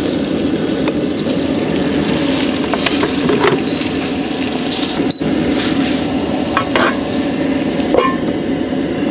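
Sliced smoked duck sizzling in an electric grill pan, over a steady low hum, with a light knock near the end as the pan's lid is put on.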